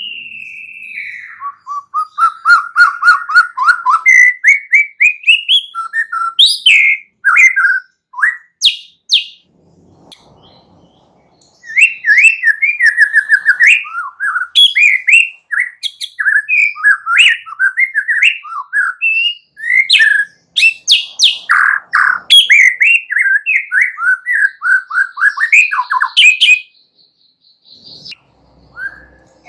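Young white-rumped shama singing: long, loud runs of quick, varied whistles and chirps that break off for about two seconds a third of the way through, then run on without a break until a short pause near the end.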